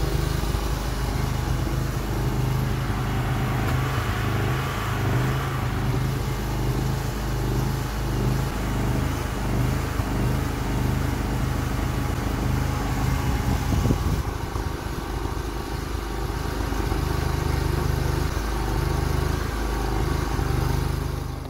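Homemade mini excavator's small engine running and driving its hydraulic pump while the boom, arm and bucket are worked.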